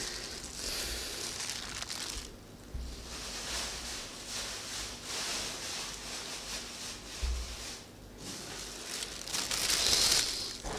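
Plastic bag lined with a filter cloth crinkling and rustling irregularly as it is handled, loudest about nine to ten seconds in.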